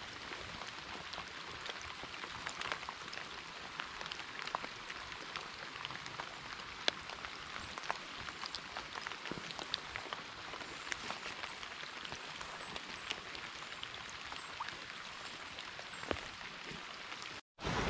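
Rain falling on a creek's surface: a steady hiss with scattered sharp ticks of individual drops. The sound cuts out for a moment near the end.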